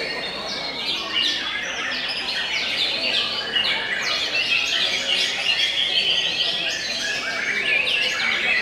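Caged white-rumped shamas (murai batu) singing at once in a dense, unbroken run of rapid chirps and whistles.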